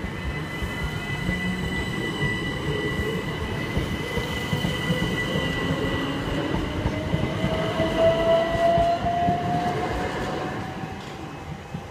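Southern Class 377 Electrostar electric multiple unit passing close by, with steady wheel-on-rail running noise and a whine that rises in pitch over the second half. It fades near the end as the last coach goes by.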